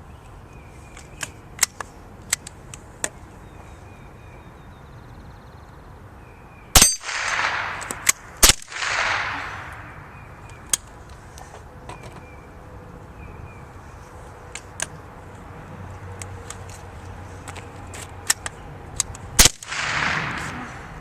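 Single-shot .22 rifles firing at a steel dueling tree: three sharp cracks, about 7, 8.5 and 19.5 seconds in, each followed by ringing from the steel target. Small clicks and knocks come between the shots.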